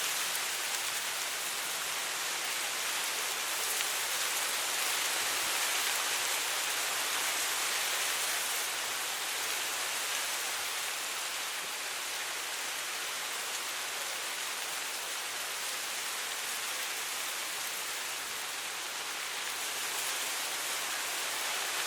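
Soft wind blowing through dry, tall grass: a steady, even hiss of rustling blades.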